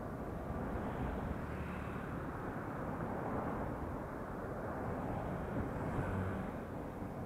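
Wind rushing over the microphone of a camera on a moving cyclist, mixed with road traffic going by; the noise swells a little around six seconds in as a pickup passes.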